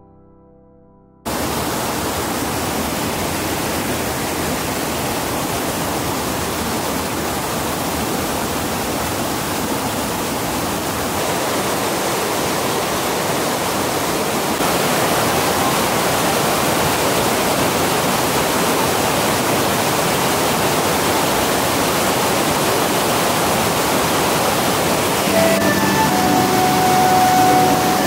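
Steady rush of falling water that starts abruptly just over a second in and grows louder about halfway through.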